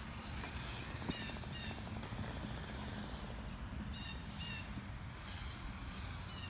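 Short bird chirps, in quick pairs a few times, over a steady low rumble.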